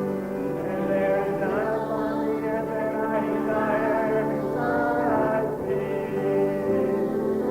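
A group of voices singing a psalm together, in held notes that step from pitch to pitch.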